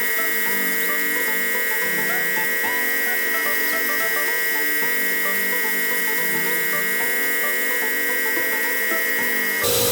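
DIY CNC router spindle whining steadily while milling 5083 aluminium, with lower tones stepping in pitch every half second or so as the machine moves. Near the end the sound changes abruptly to a different steady tone.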